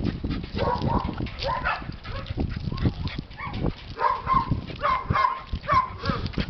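Small dog giving short, repeated high yips and whines as it jumps up excitedly on the leash. The cries come faster in the second half.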